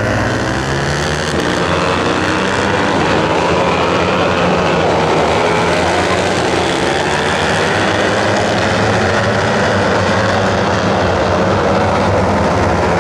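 Several JP250-class lightweight racing motorcycles running at high revs through a corner, many engine notes overlapping and rising and falling as the bikes shift gear and pass.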